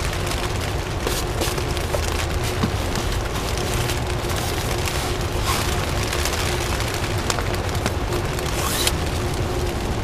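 Rain on the plastic sheeting of a small shelter: a steady dense patter with scattered sharper taps, over a low rumble.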